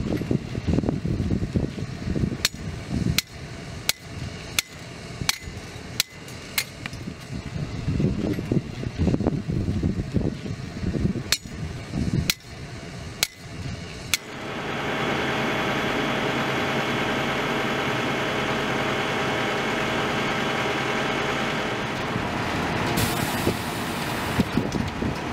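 A hammer driving steel stakes for a curb string line: sharp metallic clinks at about three strikes every two seconds, in two runs with a pause between them. From about halfway through, a concrete mixer truck's diesel engine runs at a steady hum as it feeds concrete, with a short hiss near the end.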